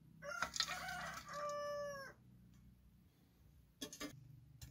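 A rooster crowing once: a crow of about two seconds that starts broken and ends in a long held note. A few short knocks follow near the end.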